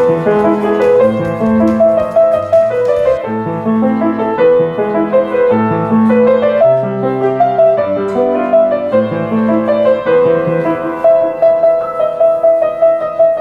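Piano music: a grand piano playing a melody over lower chords, with the treble dulling about three seconds in.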